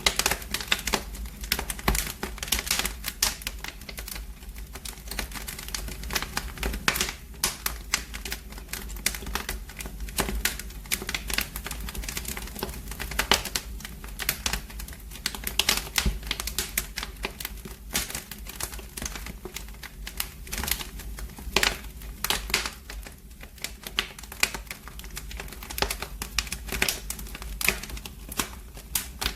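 Wood fire in a fireplace crackling: a dense run of irregular sharp snaps and pops over a steady low rumble.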